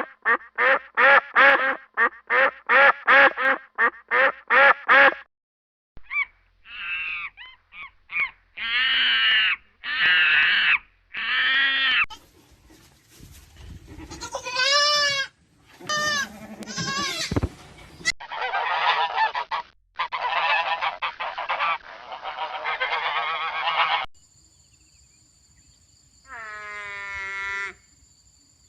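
A string of bird calls: about ten quick, evenly spaced honks in the first five seconds, then a run of other calls and chattering of changing pitch, and one longer call near the end.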